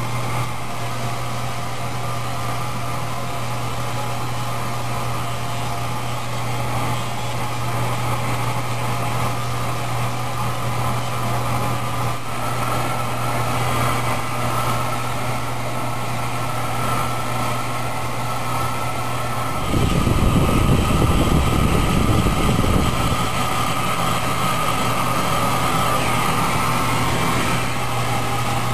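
Handheld laser paint-stripping system working on an aluminium aircraft panel: a steady machine hum with a constant hiss of ablation over it. About twenty seconds in, a louder low rumble lasts for about three seconds.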